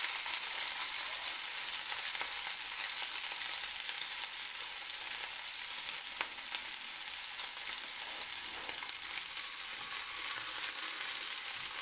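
Poached chicken roulades searing in hot oil in a non-stick frying pan, a steady sizzle as the bottoms seal and brown. A faint click about six seconds in.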